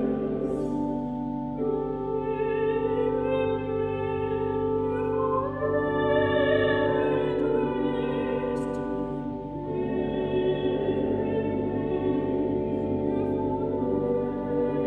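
Mixed choir singing sacred classical music in long held chords that change every few seconds.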